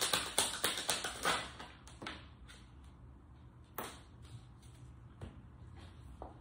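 Tarot cards being shuffled by hand: a rapid run of small card clicks that stops about a second and a half in. Then single cards are drawn and laid on the table with a few separate soft taps, one sharper a little before the middle.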